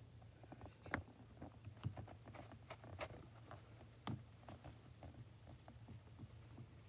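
Faint scattered clicks and light rubbing of fingers on a phone's screen protector, pressing out trapped air bubbles, with two sharper taps about a second in and about four seconds in.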